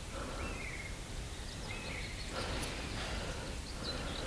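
Quiet outdoor ambience: a steady low background hiss with a few faint, short bird calls.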